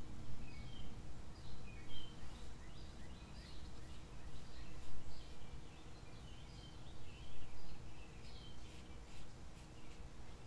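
Birds chirping in short, repeated calls over a steady low background rumble, with the scrape of a Gillette Super Speed safety razor's short strokes through lather and stubble, more frequent near the end.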